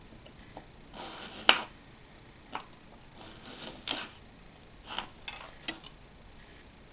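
Hobby knife drawn along a steel ruler, cutting thin wooden strips: short scraping strokes, each ending in a sharp click, then a few lighter clicks of the ruler and strips on the bench near the end.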